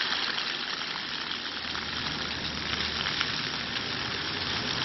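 Steady hissing background noise with a few faint clicks.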